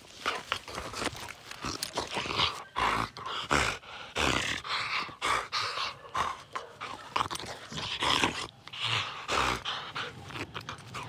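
American Pit Bull Terrier making irregular bursts of noise while playing rough, mouthing and lunging at a hand and leash.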